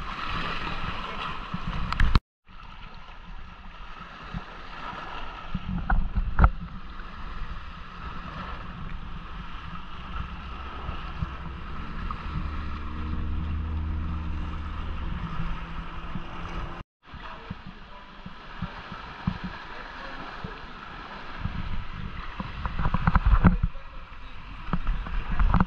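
Sea water sloshing and splashing around kayaks as they are paddled, with wind buffeting the microphone and a few sharp knocks. A low droning hum comes in for a few seconds midway, and the sound drops out briefly twice.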